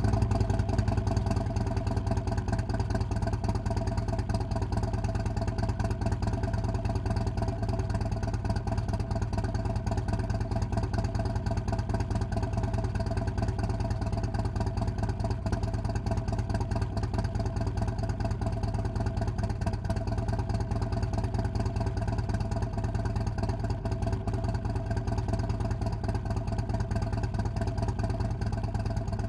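Harley-Davidson Road King Special's Milwaukee-Eight 107 V-twin, with a Fuel Moto Jackpot 2-1-2 head pipe and Street Outlaw mufflers, idling steadily just after start-up. It is a little louder in the first second, then holds an even idle with no revs.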